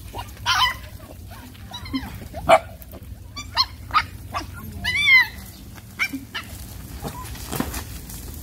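Puppies whining and yelping for food: a string of short, high-pitched cries, the longest one about five seconds in.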